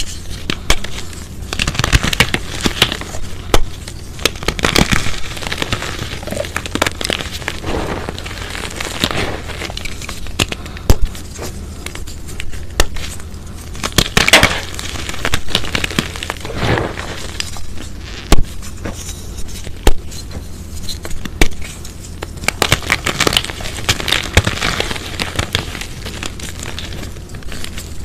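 Hands squeezing and crushing sun-dried chalk pieces and powder: dry crunching and crumbling with many sharp cracks, coming in uneven bursts.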